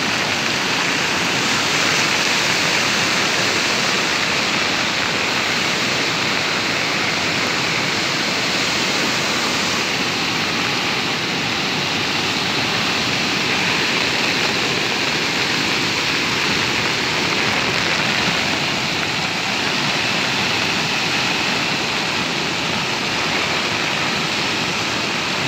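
River in flood, its fast, muddy water rushing and churning with a steady, loud rushing noise.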